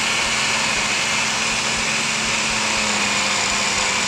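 Countertop blender running steadily, its motor whirring as it blends spinach, green apple, cucumber, lemon and celery into a green juice.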